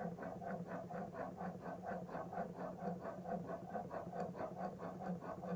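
Steel chisel bevel scraping back and forth on a 4,000-grit sharpening stone in a quick, even rhythm of about four strokes a second. The chisel is being honed, the fine grit polishing away the scratches left by the coarser stone.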